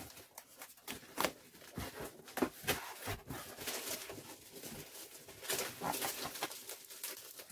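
Cardboard box and bubble-wrap packaging being handled and unwrapped: an irregular run of rustling, crinkling and scraping.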